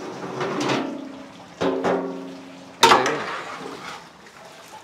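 Background music: held notes with two sharp percussive hits, about one and a half and three seconds in.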